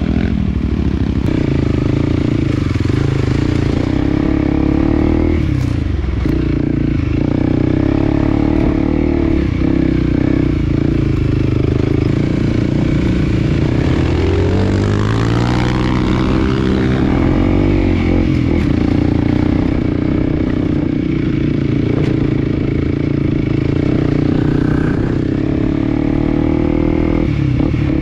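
Small motorcycle engine running steadily under way on a trail, its pitch climbing and then dropping again about halfway through as the revs change.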